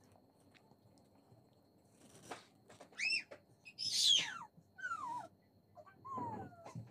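An animal's cries: about four short, high calls that fall in pitch, the loudest about four seconds in.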